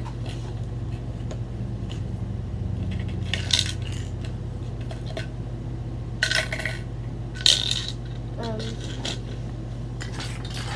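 Small hard objects clinking and rattling as they are put into a gumball machine: three short clatters a few seconds apart, over a steady low hum.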